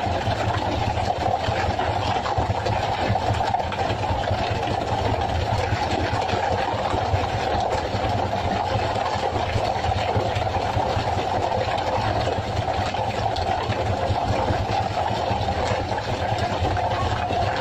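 An engine running steadily at an even speed, with a fast, even pulsing.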